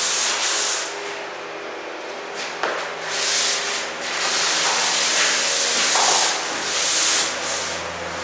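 Airless spray gun hissing as it sprays water-based satin enamel onto a window frame. The hiss comes in passes: a short one at the start, then a longer stretch from about three seconds in to near the end.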